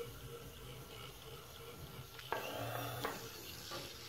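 Small DC motors of a kit-built line-following robot car whirring as it drives and steers along a taped line, with a couple of sharp clicks about two and three seconds in.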